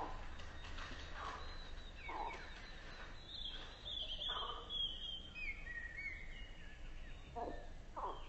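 Frogs croaking: short calls roughly once a second, with a run of falling high chirps in the middle, over a low steady hum.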